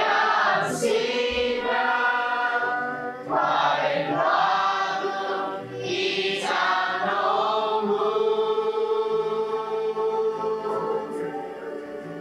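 A group of voices chanting in unison in Chamorro, asking the ancestors' permission to dig on their land. The chant comes in several phrases, the last held as one long note that fades near the end.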